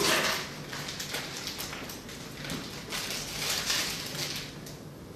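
Handling noises: rustling and light clicks and knocks as the laser handpiece and its parts are picked up and moved.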